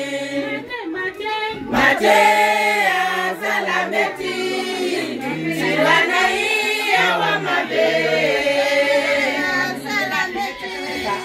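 A group of women singing together as a choir, voices in unison with held and gliding notes.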